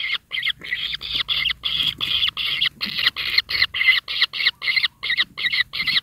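Kingfisher nestlings giving a rapid string of harsh, rasping begging calls in the nest burrow, about four a second without a break.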